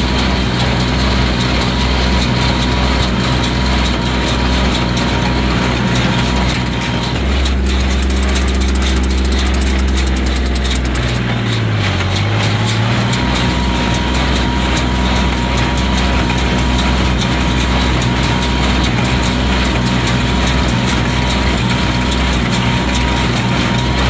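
A 30-horsepower tractor's engine running steadily under load while driving a New Holland small square baler through the PTO in the field. About halfway through, the engine note dips briefly and then recovers.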